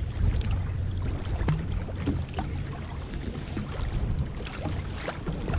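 Strong headwind buffeting the microphone with a steady low rumble, over choppy sea water slapping and splashing irregularly against a sea kayak's hull as it heads out into a force 4–5 wind and swell.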